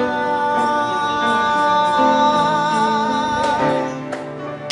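A singer holds one long note with vibrato over a live band's accompaniment. The note ends a little under four seconds in, as a few hits on hand drums, tambourine and cymbal come in.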